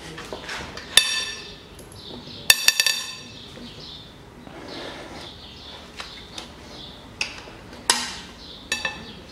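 Sharp metallic clinks with a short ringing as a Torx bit and long steel breaker bar work the cylinder head bolts of a Mitsubishi 4B10 engine. There is a quick cluster of them about two and a half seconds in, and a few more near the end.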